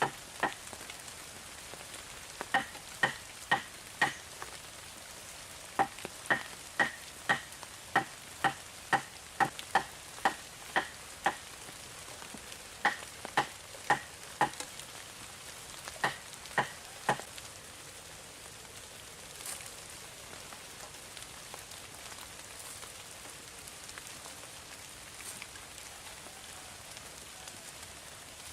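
Sharp knocks in runs of several, about two a second, over a steady hiss; the knocks stop about two-thirds of the way through and the hiss goes on alone.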